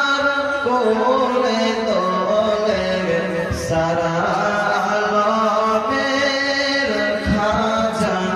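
A man singing a Bengali Islamic gojol (devotional song) solo, drawing out long notes that waver and bend in pitch.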